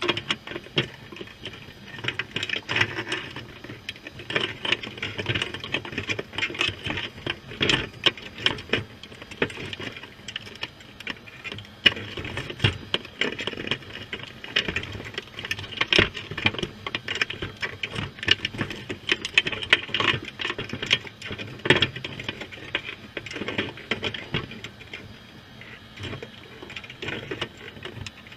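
Underwater, crabs' legs and claws clicking and scraping on the wire mesh of a crab trap and on the camera housing: a dense, irregular patter of sharp clicks, busier from about two seconds in.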